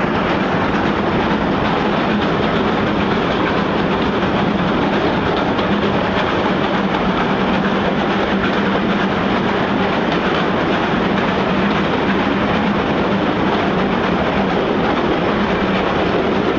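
LMS Stanier Mogul steam locomotive 42968 working hard through a railway tunnel, its exhaust and the carriage wheels on the rails making a loud, steady din that echoes off the tunnel walls.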